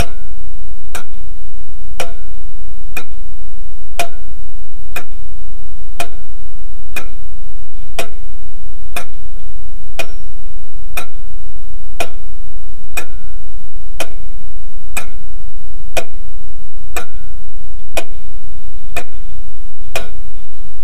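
Ticking clock, an even tick-tock at about two ticks a second, over a steady low hum.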